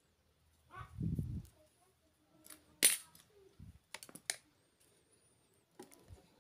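Handling noise of hand tools and a plastic mains plug being set down and picked up: a dull bump about a second in, one sharp click a little before halfway (the loudest), then a few lighter clicks.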